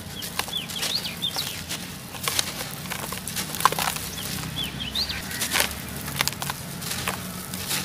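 Dry, powdery soil clumps crunching and crumbling apart in irregular crackles and small snaps. A bird chirps twice in the background, in two quick runs of short rising chirps.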